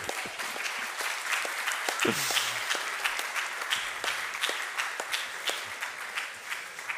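Audience applauding: many hands clapping irregularly, easing off near the end, with a brief voice about two seconds in.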